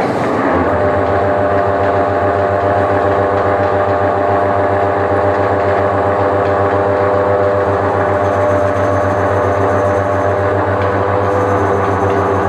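Centre lathe switched on: its electric motor and geared headstock come up to speed almost at once and run steadily, a constant hum with a steady whine from the gearing, the chuck spinning a job.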